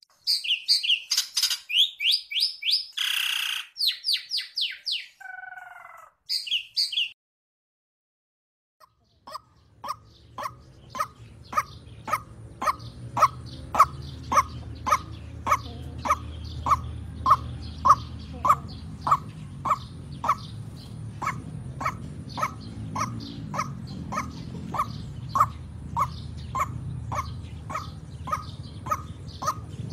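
White-breasted waterhen calling a long, even series of short harsh 'ruak' notes, about two a second, over a low rumble and a faint steady high tone. It starts after a short pause, which follows several seconds of rapid high chirps and a falling sweep.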